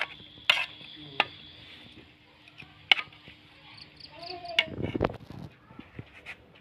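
A metal spoon clinking against an aluminium cooking pot while stirring rice and meat: several sharp, irregularly spaced clinks. About five seconds in comes a short burst of low rumbling handling noise.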